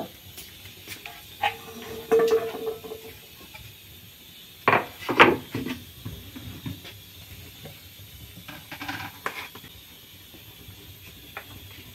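Dishes and kitchen utensils clattering: scattered knocks and clinks, the two loudest about five seconds in and a few lighter ones near nine seconds.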